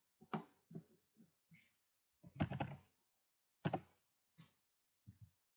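Computer keyboard keys and mouse buttons clicking in a run of separate short taps, as a file name is typed and the file saved.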